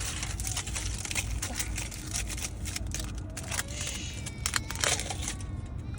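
Crinkling and clicking handling noises close to the microphone, many short irregular crackles.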